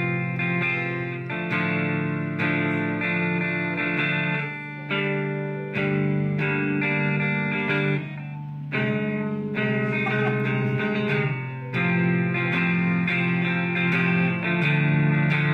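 Jackson electric guitar played through a Marshall MG30CFX combo amp: sustained notes and chords changing every second or so, with a short break about halfway. The amp plays normally, still working after being dunked in a swimming pool.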